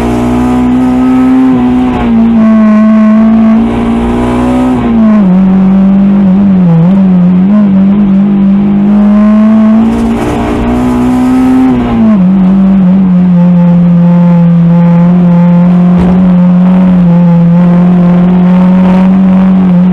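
Honda Integra DC2's B18C2 four-cylinder engine with a B16A2 head, heard from inside the cabin, running loud and steady under way. Its pitch steps down about five seconds in and again about twelve seconds in, then holds to the end.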